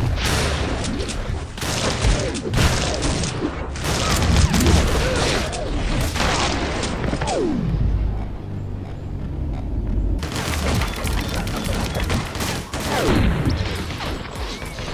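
Rapid gunshots from an action-film shootout over a music score, with a brief lull in the shooting about eight seconds in.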